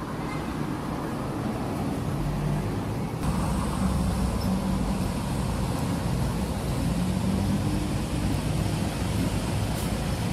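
Street traffic: cars and a lorry passing, their engines running under a steady road rumble that grows a little louder about three seconds in.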